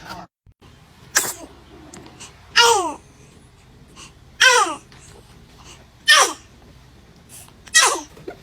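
A baby sneezing five times, one to two seconds apart. Each sneeze is a short burst, most with a squeaky voiced part that falls in pitch.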